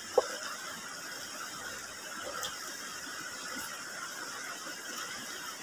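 Steady rush of a shallow river running over rocks. A short sharp sucking sound from the mouth comes just after the start as a man eats chicken feet.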